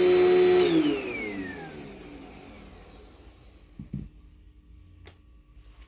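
Dirt Devil Dynamite Plus vacuum cleaner running, switched off less than a second in; its motor whine falls in pitch and fades as it spins down. A couple of faint knocks follow.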